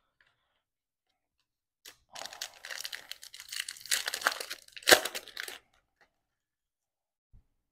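Foil trading-card pack wrapper being torn open and crinkled by hand, starting about two seconds in, with one sharp, loud rip near the end of the tearing.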